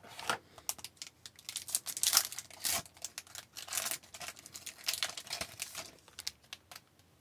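Trading-card pack wrapper being crinkled and torn open, with small clicks from the cards as they are handled: a dense run of sharp crinkles and clicks that stops about half a second before the end.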